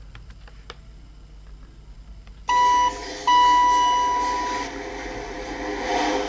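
Lift chime: a short tone, then a longer ringing tone that fades, followed by a steady hum from the lift.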